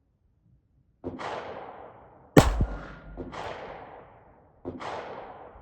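A single suppressed .22 rimfire pistol shot about two and a half seconds in, a sharp crack that is the loudest sound here: the first shot from a Ruger Mark IV Hunter with a Tandem Kross Halo suppressor, after which the pistol misfeeds. Three other gunshots with long fading echoes, one before it and two after, come from other shooters on the range.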